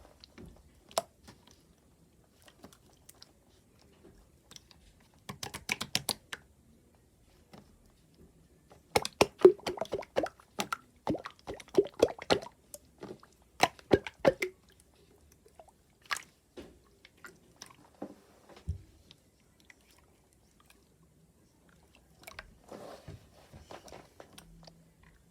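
Crunchy, crackling clicks in irregular bursts, thickest around the middle, with quiet gaps between them: a textured slime being pressed and squeezed by hand.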